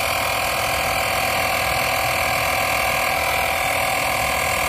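Portable 12-volt tyre inflator's piston compressor running steadily, pumping air into a car tyre toward its preset pressure of 280, at which it will cut out by itself.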